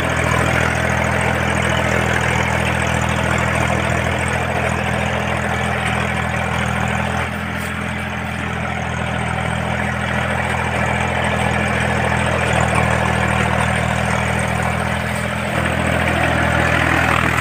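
Small 4x4 tractor's engine running steadily as it pulls a rotavator between rows of tall sugarcane. The level dips briefly about halfway through.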